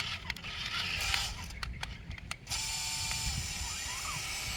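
Sharp clicks and rattling from the mechanical parts of a toy radio-controlled truck being handled. About halfway through, a steady hiss sets in with a faint whine and a few short rising and falling tones.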